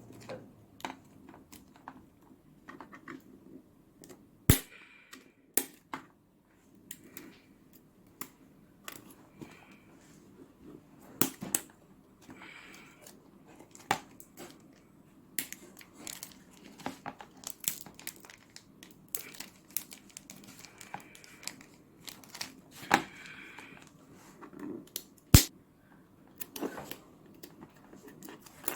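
Toy blind-box packaging being torn open and crumpled by hand while a Smashers volcano is opened. Scattered crinkling and tearing throughout, broken by sharp snaps and clicks, two of them loud: one about four and a half seconds in, one near the end.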